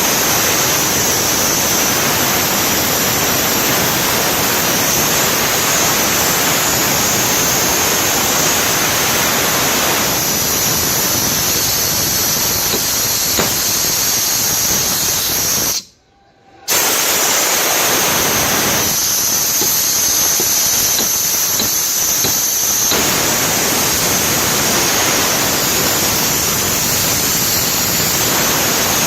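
Steady, loud rushing hiss that cuts out for under a second about halfway through and then starts again.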